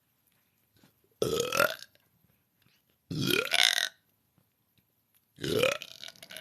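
A person burping loudly three times, about two seconds apart. Each burp lasts under a second and rises in pitch.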